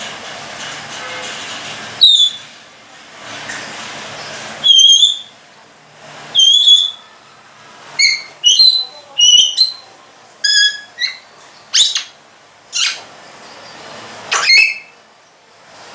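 African grey parrot giving a string of short, sharp whistles and squawks, about a dozen, with brief pauses between them.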